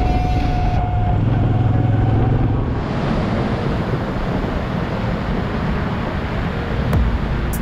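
Moto Guzzi V9 Bobber riding on the road: a low engine hum under wind rushing over the microphone, with the wind hiss growing stronger about three seconds in.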